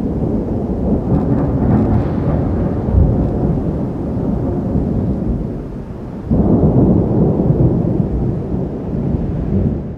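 Thunder rumbling low and heavy during a violent thunderstorm, with a fresh peal breaking in suddenly about six seconds in.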